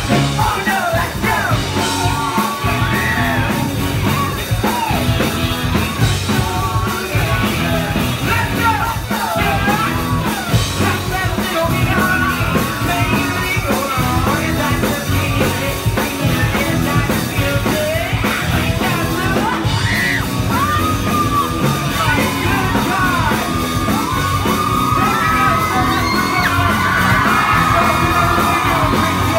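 Live rock band playing loudly, electric guitars, bass guitar, keyboard and drum kit, with a male lead singer singing and yelling into the microphone.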